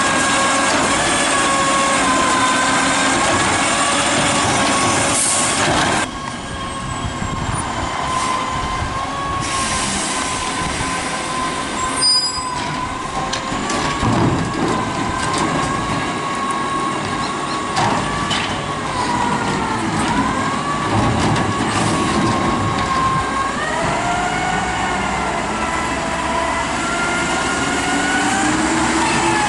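2010 DaDee Scorpion automated side-loader garbage truck working, its engine and hydraulics giving a steady whine while the arm lifts and dumps a cart. About six seconds in the sound drops to a more distant truck collecting and moving off, with a sharp knock about twelve seconds in and the whine rising and falling as the engine revs in the second half.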